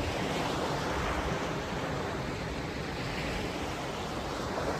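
Steady rush of surf breaking on a beach, with wind.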